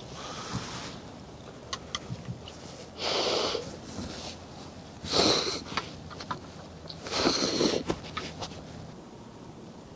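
A person slurping ramen noodles: four short noisy slurps about two seconds apart, with a few light clicks between them.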